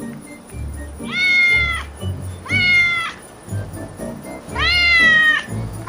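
Domestic cat meowing three times, each call about a second long, over background music with a steady beat.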